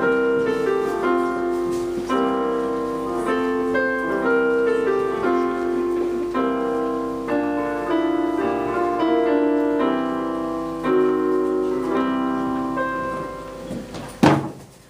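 Piano playing a tune over chords, fading out near the end. A single sharp knock comes just after the music fades.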